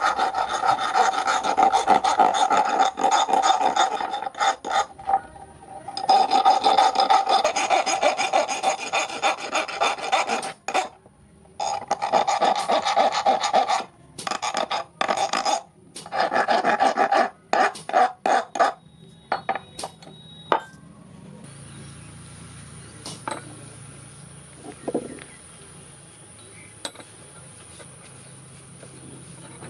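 Hand filing on the forged steel hook: runs of rapid rasping strokes with short pauses, stopping about two-thirds of the way through. After that only a faint hum with a few light ticks.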